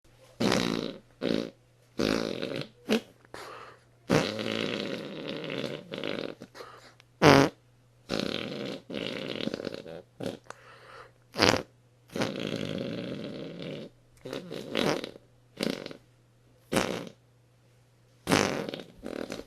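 Fake fart noises made by a person blowing into the inside of his arm with his mouth pressed against it: a long run of about twenty blasts, some short and some over a second long, with short gaps between.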